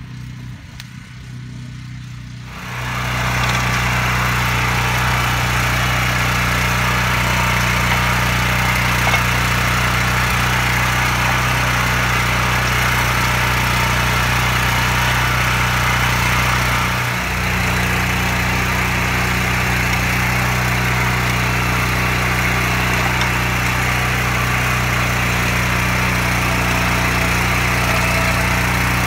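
The gasoline engine of a BCS 732 two-wheel walking tractor runs steadily while driving a rotary plow that throws soil to raise a bed. It gets louder about two and a half seconds in, and its pitch dips briefly about halfway through.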